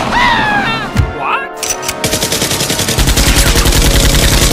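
Machine-gun fire sound effect: a rapid automatic burst starting about two seconds in and getting heavier a second later, over action background music. It opens with a sharp bang.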